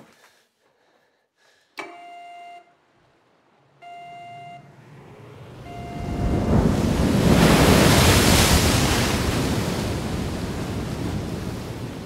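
A click, then a short electronic ringing tone sounds three times about two seconds apart, the third fainter. Sea surf and wind then swell up, loudest about two-thirds of the way through, and slowly ease off.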